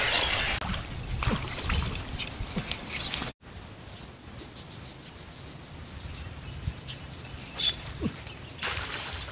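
Water splashing among swamp grass as a fish breaks the surface. Then a steady high insect buzz, a sharp snap about three-quarters of the way through as a casting rod is jerked up to set the hook, and a short rush of noise near the end.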